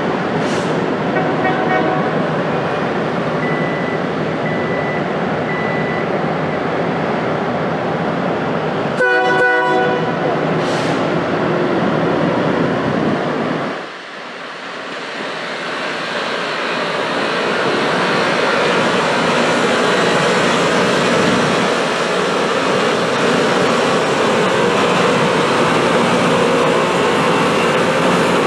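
Loram rail grinder train passing, its grinding stones scraping the rail in a loud, steady rush. A short horn blast sounds about nine seconds in, and the noise dips briefly around fourteen seconds before building again.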